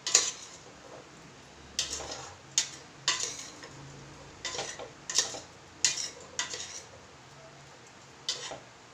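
A cooking utensil knocking and scraping against a stainless steel pan as sautéed vegetables are stirred, in a series of sharp clatters at uneven intervals.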